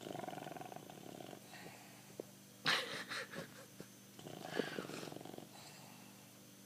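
Bulldog snoring in three rough breaths, the middle one, about three seconds in, sharper and the loudest.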